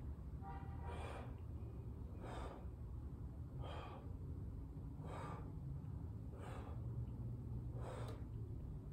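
A man's breaths, six in a row about one every second and a half, over a steady low hum.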